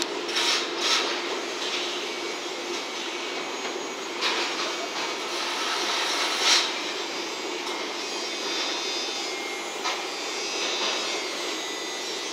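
JNR 115 series three-car electric train pulling away and running off over the station pointwork, a steady rushing rumble with a low hum that fades about a third of the way in. A few sharper knocks come as the wheels cross the points, the loudest about six seconds in.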